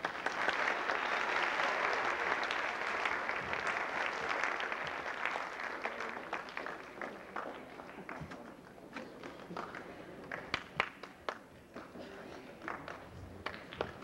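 Audience applause, dense for the first few seconds, then dying away into scattered single claps.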